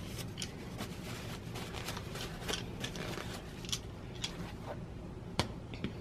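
A tissue rustling as it wipes built-up lint and debris off a plastic rotary cutter, with scattered light clicks and taps of the cutter being handled and one sharper tap near the end.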